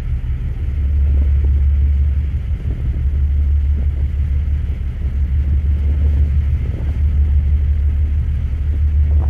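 Steady low rumble of the Santorini Palace high-speed ferry's engines, heard on the open deck near the smoking funnels.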